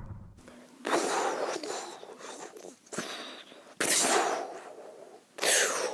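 Explosion sound effects in a battle scene: three sudden blasts of noise, each fading away over about a second, with a smaller pop between the first two.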